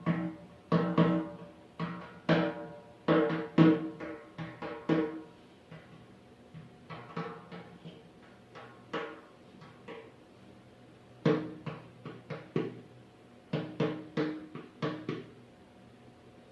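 Drum struck in an irregular rhythm, each stroke ringing with a low pitched tone. Dense clusters of strokes give way to sparser, softer ones in the middle, then a second cluster comes before the playing stops near the end.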